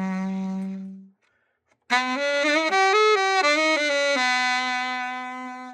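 Solo alto saxophone playing unaccompanied. A held low note fades out about a second in, then after a short pause a phrase of several notes ends on a long held note that fades away.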